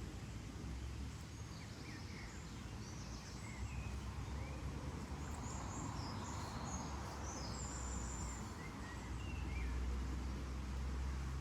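Several small birds chirping and calling in short, scattered notes over a steady low rumble of outdoor ambience.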